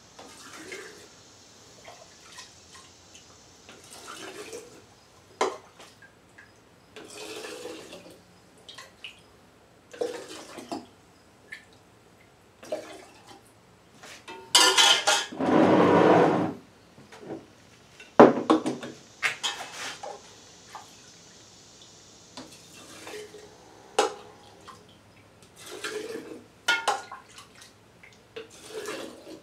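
A metal ladle repeatedly dips and clinks in a stainless steel pot, and liquid is poured through a funnel into glass mason jars, with splashing and dripping. The longest and loudest pour, about two seconds, comes about halfway through. The other scoops and pours are shorter and quieter.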